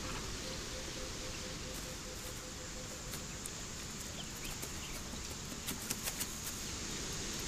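Natural outdoor ambience: a steady hiss with faint, scattered ticks and short chirps, and a low, evenly pulsing note that stops about three seconds in.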